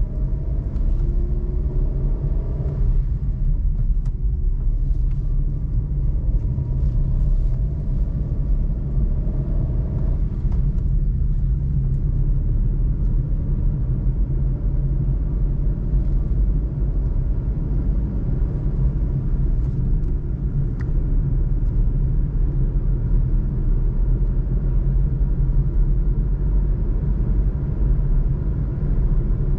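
Suzuki Alto 660cc three-cylinder engine and road noise heard from inside the cabin while driving: a steady low rumble, with the engine note rising a few times as the car picks up speed through the gears.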